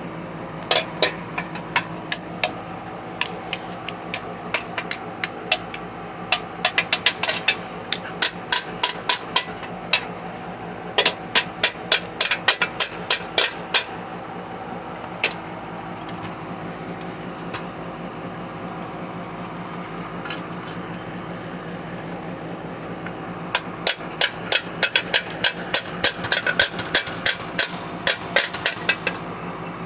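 Small hammer tapping metal anchors into concrete through the mounting holes of a stainless steel dog waterer. The sharp taps come in quick runs of several a second, with a pause of a few seconds past the middle before a last long run.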